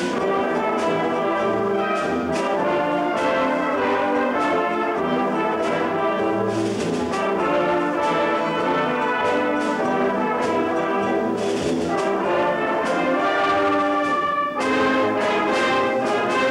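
Large youth brass band, with flutes, playing a piece together, full and steady, with a very short break near the end before the band comes back in.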